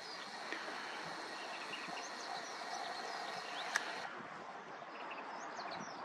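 Steady outdoor background noise with faint, brief high chirping calls of distant birds scattered throughout. A faint steady high tone stops about four seconds in, just after a single sharp click.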